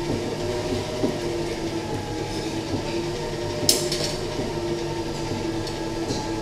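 Stand mixer running steadily, its beater creaming butter, margarine and sugar powder in a stainless steel bowl. One sharp click a little over halfway through.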